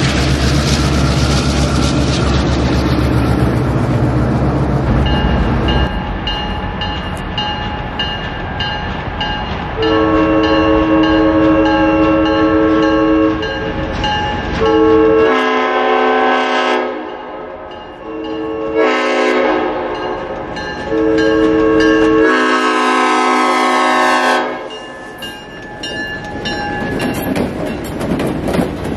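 A motor vehicle engine rumbles for the first few seconds, then a grade-crossing bell starts ringing. An EMD GP9 diesel locomotive sounds its horn in a series of blasts as it nears the crossing, and near the end it passes with a rumble of wheels on the rails.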